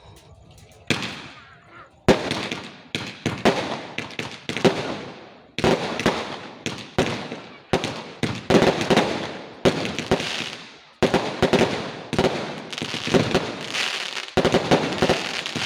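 Fireworks going off in rapid succession: a single bang about a second in, then from about two seconds on a continuous volley of sharp bangs, several a second, each trailing off in a crackling, echoing tail.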